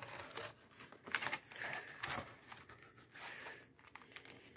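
Paper pamphlets and packaging rustling and crinkling as they are handled, with a few sharper crackles.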